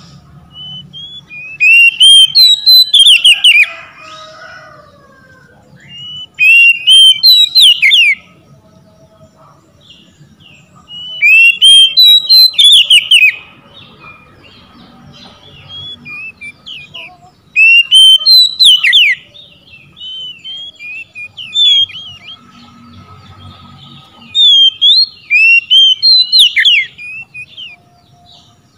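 Oriental magpie-robin singing in full voice: loud bursts of rapid, varied whistled notes and sharp chips, about six phrases with short pauses of a few seconds between them.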